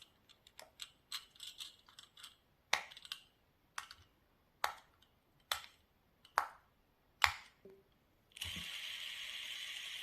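Pop-it fidget spinner's silicone bubbles being pressed: a quick run of small pops, then single sharp pops about once a second. Near the end a steady hiss sets in.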